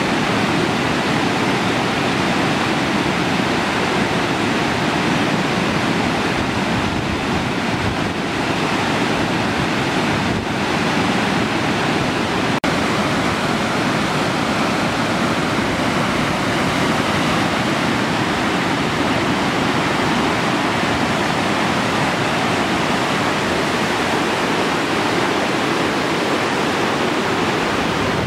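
Loud, steady rushing of a white-water mountain stream tumbling over rocks, with one brief break about halfway through.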